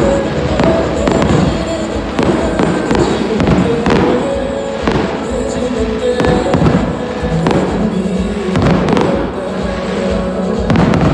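Aerial fireworks display: shells bursting in a series of sharp bangs a second or two apart, with crackling, over loud music.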